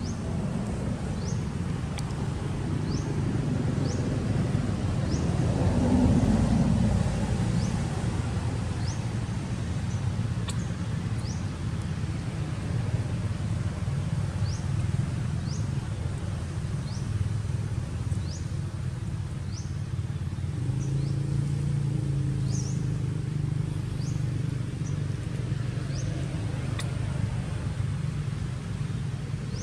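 Outdoor background: a steady low rumble, like distant traffic, with a short, high, rising bird chirp repeated about once every second or two. The rumble swells louder about six seconds in.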